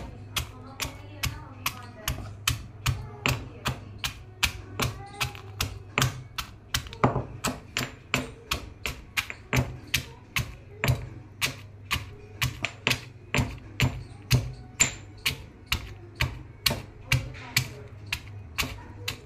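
Roasted makhana (fox nuts) being pounded coarse in a small stone mortar, a steady run of sharp taps about two and a half a second.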